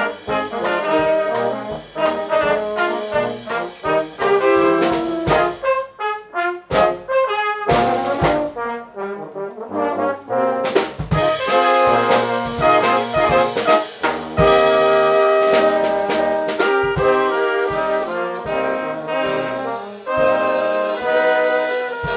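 Small brass band playing: E-flat and B-flat cornets, alto and tenor horns and bass tuba, over a drum kit. The music thins out to a sparser, quieter passage near the middle, then the full band comes back in loud for the rest.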